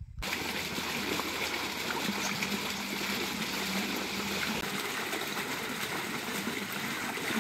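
Steady running and splashing water as a small child is bathed, water spilling onto the ground around him.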